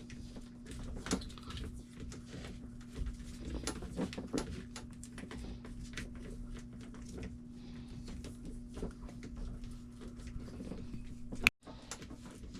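Electrical tape being pulled off the roll and wrapped around a crimped wire connection: irregular crackling and ticking of the tape peeling, over a steady low hum. One sharp click near the end.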